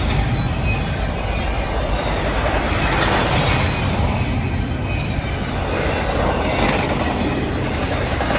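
Double-stack intermodal freight train's well cars rolling past, a steady rumble of steel wheels on the rails.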